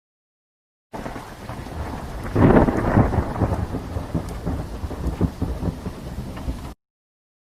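Thunderstorm sound effect: rain starts suddenly about a second in, and thunder rumbles loudest a couple of seconds later. The rain carries on until it cuts off abruptly near the end.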